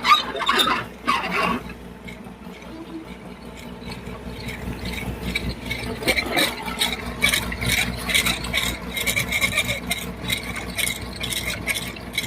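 Fishing boat's engine running steadily, with a quick irregular clattering rattle from about four seconds in.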